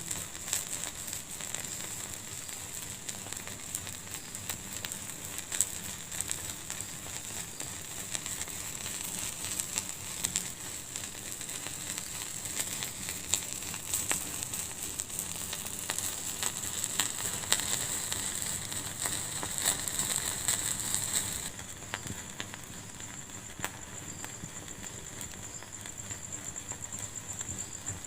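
Wood fire burning in a fireplace, crackling with many small sharp pops over a steady hiss. About three quarters of the way through, the hiss drops suddenly to a quieter level while the crackling goes on.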